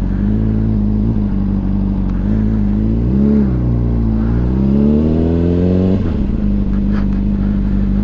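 Honda CBR600RR's inline-four engine running at low revs as the bike rolls slowly. The revs lift briefly about three seconds in, then climb for a couple of seconds and drop back suddenly about six seconds in.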